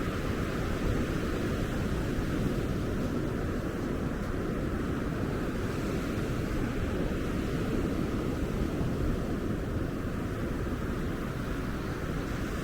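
Ocean surf washing onto a beach, a steady rushing noise with no distinct breaks or other events.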